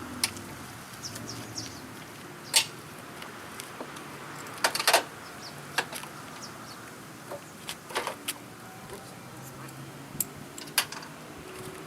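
Hand tools on the headlight's 10 mm mounting bolts, worked by hand: scattered sharp metallic clicks and taps, a few seconds apart, some in quick pairs.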